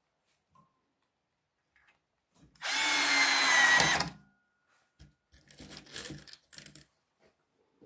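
Power drill driving a wood screw through a nylon railing bracket into lumber: one loud run of about a second and a half with a steady whine, followed by a few quieter short sounds.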